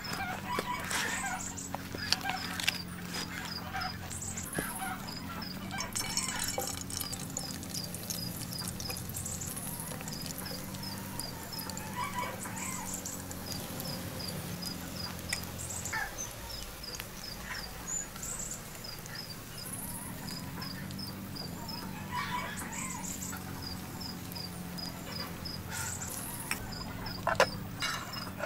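Bird and poultry sounds: a small bird repeats a short high chirp in quick runs, and now and then a louder call comes from the fowl. A steady low hum runs underneath.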